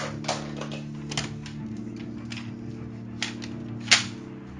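Plastic toy guns clicking and clacking as they are handled, about half a dozen sharp irregular clicks with the loudest near the end, over a steady low hum.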